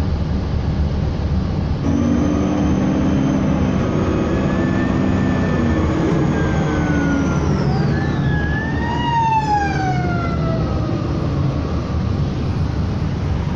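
An emergency vehicle siren comes in about two seconds in, holds its pitch, then falls steeply over a couple of seconds about eight seconds in as the vehicle passes. Steady road and engine rumble runs underneath.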